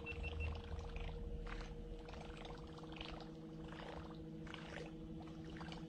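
Handmade cork popper lure being worked across calm water, giving faint, irregular splashes and pops every half second to a second over a steady low hum.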